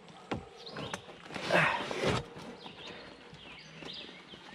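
Handling noise from work on a folding kayak's seat being lashed up with paracord: a couple of sharp clicks and knocks in the first second, then a louder rustling scrape about a second and a half in.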